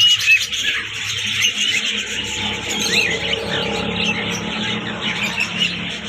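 Chorus of many small caged birds chirping and squeaking together, with a low steady hum underneath.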